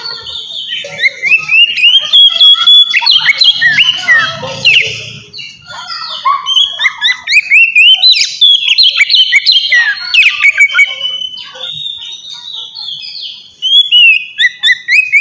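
Oriental magpie-robin (kacer) singing loudly in the open, ringing style: fast phrases of rising whistled slurs and quick chattering notes, with two short lulls between phrases.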